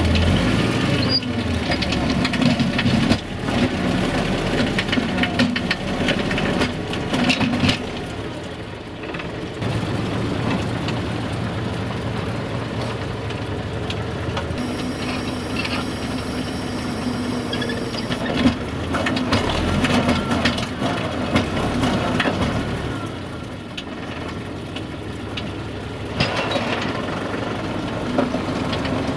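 SAME Laser 110 tractor's engine running steadily as it drives a rear-mounted forestry winch, with frequent cracking and crunching as the logs are dragged through soil and brush on the winch cable. A thin high whine joins in for a few seconds midway.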